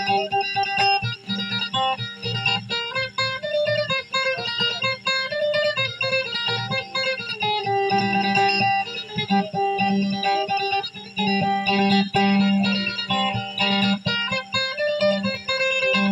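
Acoustic guitar playing a plucked melody over a repeating low bass note, in the style of Maranao dayunday music.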